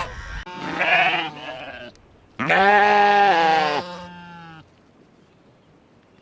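Sheep bleating: a shorter baa about half a second in, then a long, loud baa a little after two seconds that tails off.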